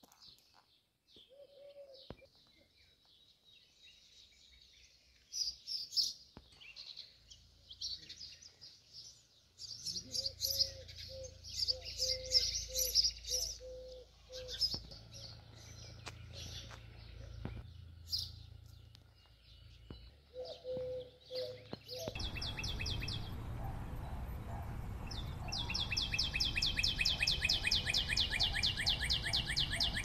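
Songbirds chirping and calling, with runs of low repeated cooing notes. About 22 seconds in a steady outdoor hiss comes up, and a fast high trill runs over the last few seconds.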